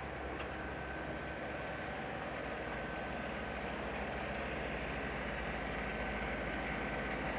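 City street traffic, a steady rumble of engines and tyres with a constant high hum, slowly growing louder.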